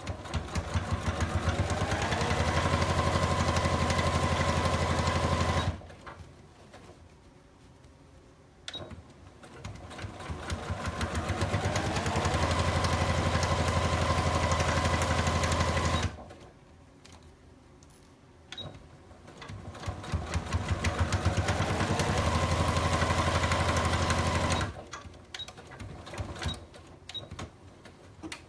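Electric sewing machine running a straight stitch in three runs, each speeding up to a steady fast whir and then stopping suddenly, with a few light clicks in the pauses between runs.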